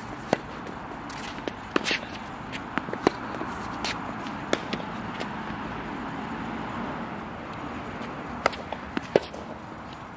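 Tennis balls being struck with racquets and bouncing on a hard court: a series of sharp pops, several in the first half and a couple more near the end, over a steady outdoor background hum.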